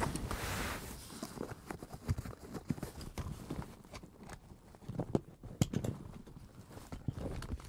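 A string of irregular knocks and crunching clicks, with a rustling hiss in the first second.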